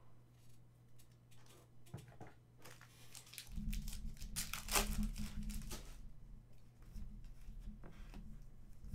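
A foil trading-card pack (2019-20 Panini Contenders basketball) being torn open and crinkled by hand, after a few faint clicks. The loudest tear comes about four and a half seconds in, followed by lighter rustling of the wrapper and cards.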